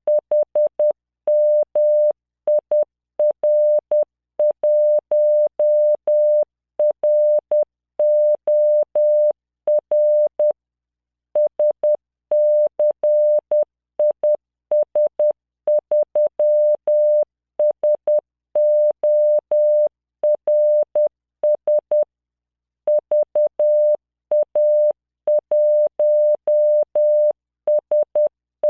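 Morse code sent at 10 words per minute as a 600 Hz computer-generated tone, keyed on and off in dots and dashes, with a faint click at the start and end of each element. Two longer pauses, about ten seconds in and again about twenty-two seconds in, mark the spaces between words.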